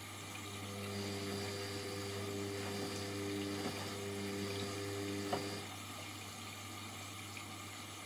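Indesit front-loading washing machine on its tumble wash: the drum motor whines steadily as it turns the wet laundry, then stops a little after halfway. Water sloshes in the drum over a steady low hum, with a couple of soft knocks as the load drops.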